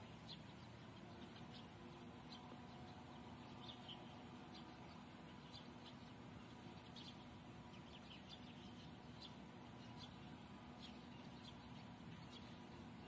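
Near silence: faint, short chirps of small birds scattered irregularly over a low, steady background noise.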